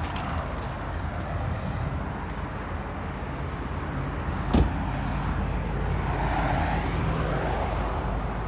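A 2012 Volkswagen Golf GTI's 2.0-litre turbocharged four-cylinder running at a steady idle, a low hum. There is a single sharp knock about four and a half seconds in.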